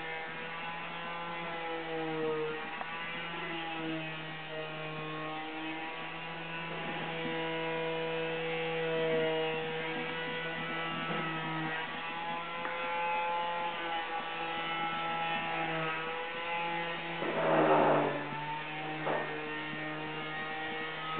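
Machinery running behind the shed: a steady, loud hum of several droning tones that waver slightly in pitch, with a brief louder rush of noise about seventeen seconds in.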